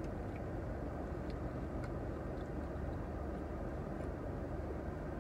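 Steady low rumble and hiss inside a car cabin, with a few faint short clicks scattered through it.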